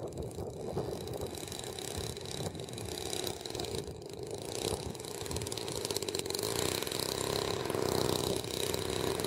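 Engine of a Revolver radio-controlled aerobatic model plane running at low throttle as it taxis, growing a little louder over the last few seconds.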